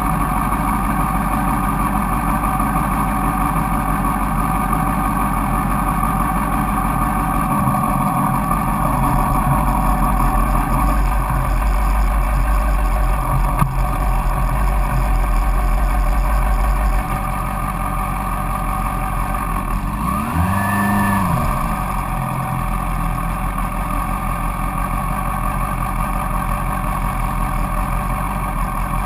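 Yamaha FZX250 Zeal's four-cylinder engine idling steadily while the bike waits at a light, heard close up from the front fender. About twenty seconds in there is a brief whine that rises and falls in pitch.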